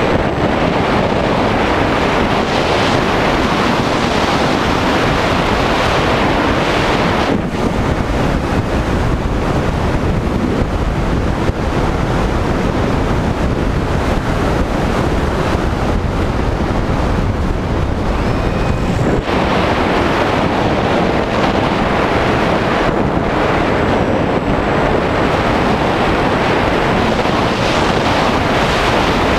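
Loud, steady wind rush from airflow over the onboard camera's microphone on a Skywalker FPV plane in flight. The hiss thins for a stretch in the middle, then returns.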